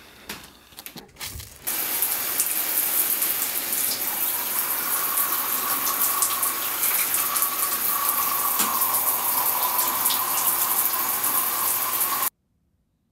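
A few soft knocks and rustles, then shower water running in a steady, even hiss that cuts off suddenly near the end.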